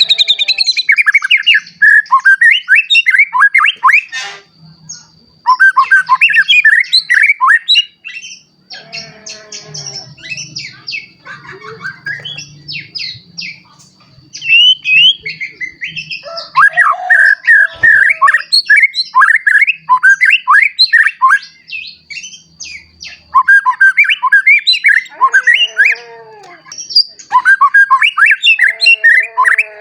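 A young male white-rumped shama, just moulted into adult plumage, singing loudly. Its song comes in bursts of rapid, varied whistled phrases with short pauses between them.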